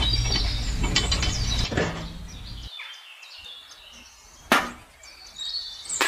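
Rustling and clattering of small toy pieces being handled and set down, with one sharp knock about four and a half seconds in. Faint bird chirps sit in the background.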